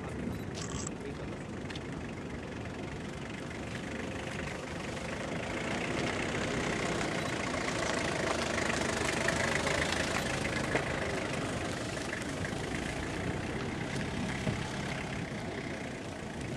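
Continuous low rumbling roar of Shinmoedake's erupting ash column. It swells for a few seconds mid-way and then eases slightly.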